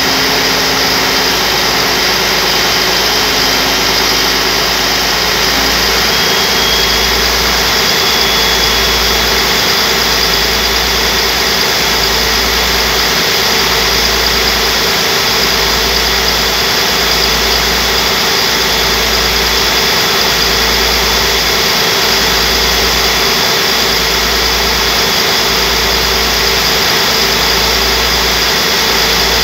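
Large turbocharged engine running steadily at about 1,100 rpm, a loud, even engine-room din. From about six seconds in, a slow low throb swells a little over a second apart.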